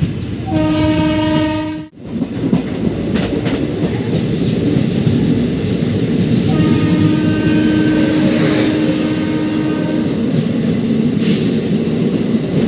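Train horn blowing twice over the steady rumble and wheel clatter of a moving train, heard from an open coach window: a short blast about half a second in that cuts off abruptly, then a long blast of about three and a half seconds starting around six and a half seconds in.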